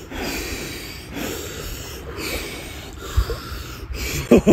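A man breathing hard and forcefully, one sharp breath roughly every second, in the cold-shock gasping of sitting in near-freezing January river water. A voice starts near the end.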